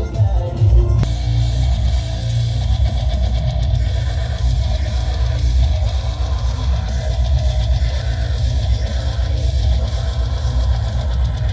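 Music played loud through an 18-inch Cat King subwoofer as a sound test, the deep bass by far the strongest part.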